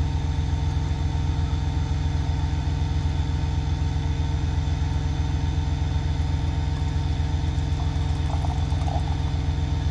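Diesel truck engine idling steadily with an even, fast low pulse.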